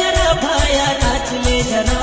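Adivasi folk dance music: a quick, steady drum beat under a held melody line, in an instrumental stretch of the song.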